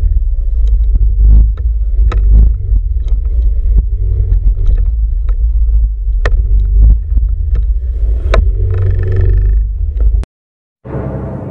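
Motorcycle ridden slowly into a bumpy dirt parking lot: a heavy low rumble of engine and wind on the camera's mic, with frequent clicks and rattles from the bumps. The sound cuts off suddenly near the end, and eerie music begins.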